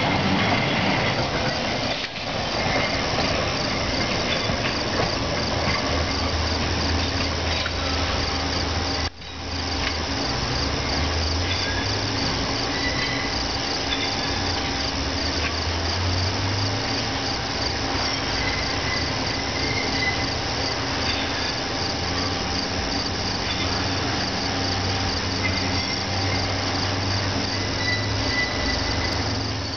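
A dense chorus of crickets chirping steadily in the night, with a faint low rumble underneath that swells and fades.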